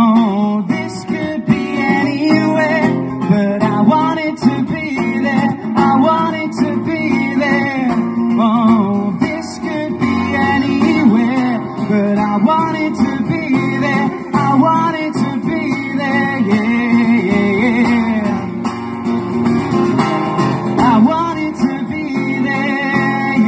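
Acoustic guitar strummed and played live through the stage PA, a continuous stretch of music with a moving melodic line over the chords.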